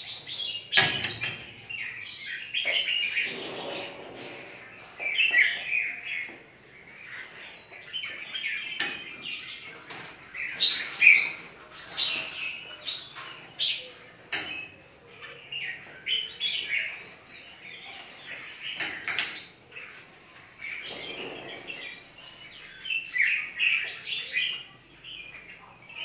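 Caged red-whiskered bulbuls chirping and calling busily. A few sharp metallic clacks cut through, from the wire feeding hatches of the cages being opened and shut.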